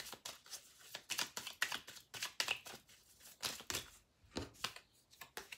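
A deck of oracle cards being shuffled by hand: a quick, irregular run of light card-on-card clicks and flicks, with a brief pause about four seconds in.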